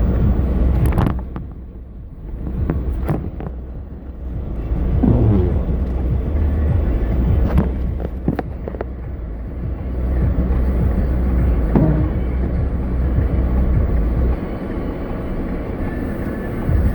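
A car driving on a snowy road: a steady low rumble of engine and road noise, with a few scattered sharp clicks and knocks.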